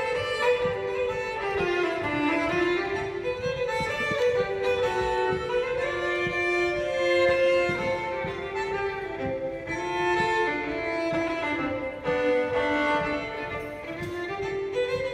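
Solo fiddle playing a quick traditional dance tune, a steady stream of fast-moving bowed notes.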